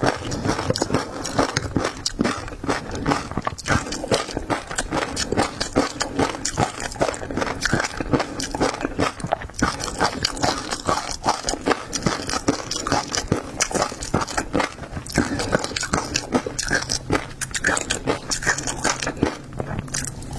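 Close-miked eating of seafood: steady chewing and crunching, with dense rapid clicks and crackles throughout.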